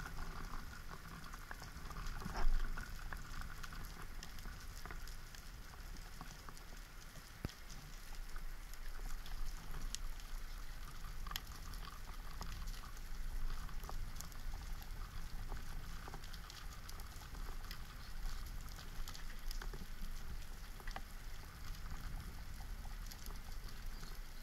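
Underwater ambience on a rocky seabed: a steady crackle of many small clicks over a low rumble, with one louder knock about two and a half seconds in.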